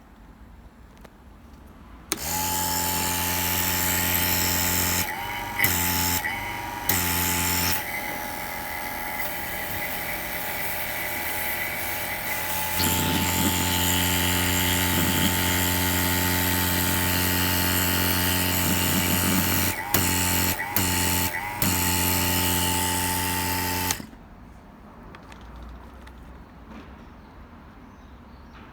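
A TASCO TA150TV electric vacuum pump switched on and running with a steady motor hum. It dips briefly a few times and runs quieter for several seconds in the middle, then cuts off sharply a few seconds before the end.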